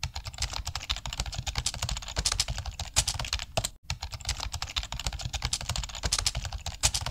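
Fast typing on a keyboard: a dense run of rapid clicks, broken once by a short gap a little past the middle.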